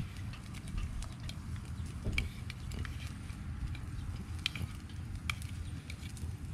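Light, scattered clicks of wooden chopsticks against a small aluminium pot while grilled meat is stirred and coated in sauce, over a steady low rumble.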